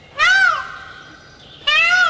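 Male Indian peafowl (peacock) calling: two loud wails, each rising and then falling in pitch, one just after the start and another near the end.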